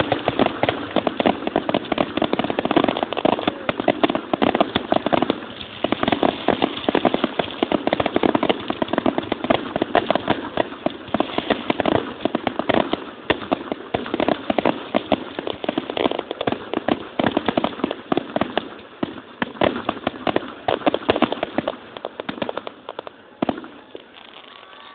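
Fireworks going off in a dense, continuous barrage of bangs and crackles, heard through a phone's microphone, thinning out in the last couple of seconds.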